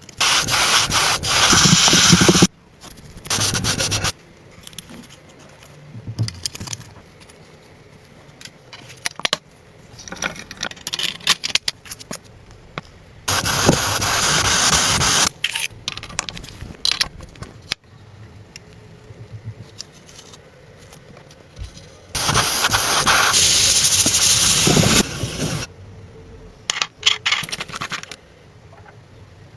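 Several loud hissing bursts, each lasting one to three seconds, with scraping and clicking noises between them, typical of hands-on car bodywork.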